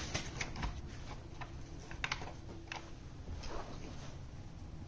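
Wing nut being spun off its stud by hand: a few faint, scattered light clicks and ticks over quiet room tone.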